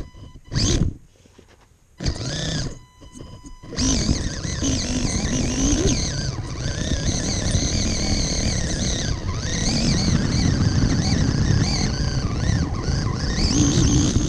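RC rock crawler's electric motor and drivetrain whining under throttle: short bursts in the first few seconds, then running continuously from about four seconds in with a pitch that wavers up and down, over the crunch of tyres on gravel.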